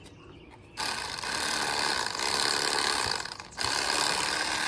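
Electric fillet knife running as it cuts a bluegill fillet: the motor starts about a second in with a steady buzz, stops briefly near the middle, then runs again. The blade is due for replacement, in the user's view.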